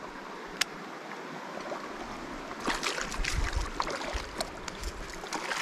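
Steady rush of a flowing creek, with one sharp click early and a run of irregular clicks and rustles through the second half.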